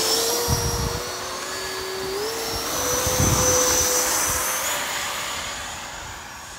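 Radio-controlled model jets whining at takeoff power, the tone stepping up in pitch a few times as the throttle is advanced. Loudest about three seconds in, then fading as they climb away.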